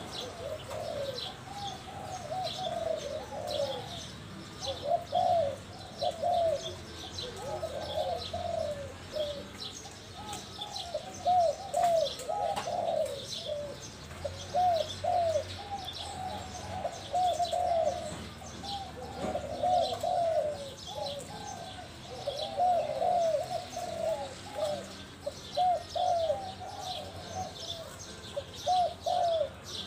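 Spotted dove cooing over and over in short arched phrases, one phrase after another with brief gaps. Small birds chirp faintly and high-pitched behind it.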